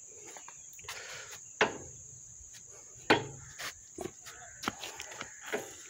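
Steady high-pitched insect buzz, like crickets, with a few irregular footsteps on the stone paving, the loudest about a second and a half and three seconds in.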